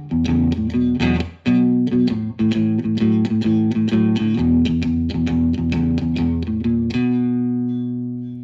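Fender Stratocaster electric guitar on its neck pickup playing a blues shuffle riff in the low register, with a brief gap about a second and a half in. Near the end it stops on a note that is left to ring out and fade.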